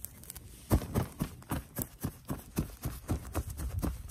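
A rapid run of evenly spaced thumps, about four a second, starting about a second in.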